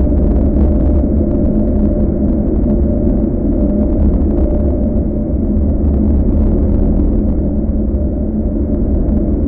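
A loud, steady deep rumble, a dense low roar with faint crackle above it, set by the artist to the footage of an atomic fireball.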